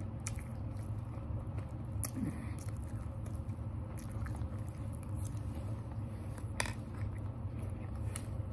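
A person chewing food with her mouth closed, with scattered small sharp mouth clicks, over a steady low hum.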